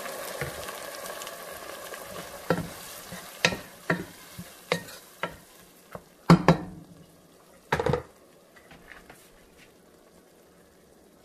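Boiled mung beans sizzling in a pot of sautéed garlic, onion and ginger as they are stirred in with a wooden spoon. The sizzle fades over the first few seconds, while the spoon knocks and scrapes against the pot about seven times, the last and loudest near eight seconds in.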